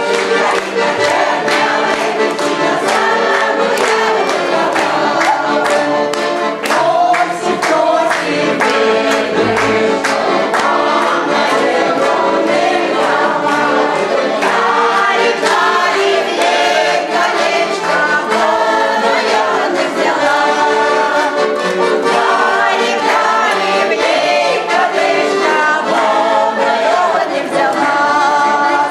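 Amateur choir singing a song together.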